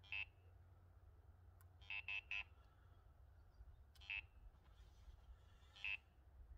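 Electronic fishing bite alarms on the rod rests beeping as the rods and lines are handled: short beeps at one pitch, a single beep at the start, a quick run of three about two seconds in, then single beeps about every two seconds.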